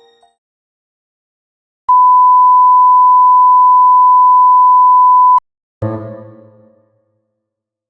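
A loud electronic beep: one pure, steady tone held for about three and a half seconds, cut off abruptly, followed about half a second later by a single musical chord that fades away.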